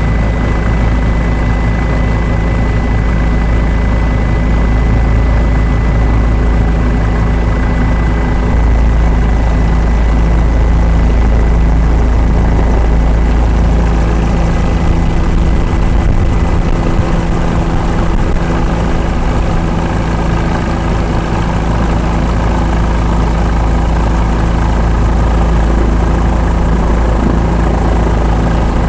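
Helicopter engine and rotor noise heard from on board, a loud steady drone with a low hum that holds throughout.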